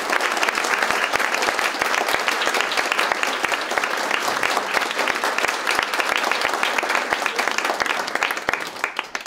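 Concert hall audience applauding: dense, steady clapping that thins to a few scattered claps near the end and stops.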